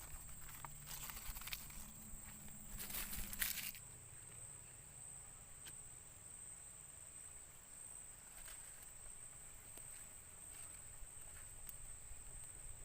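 A steady, high-pitched insect trill from the surrounding forest, with rustling and small knocks of handling in the first few seconds.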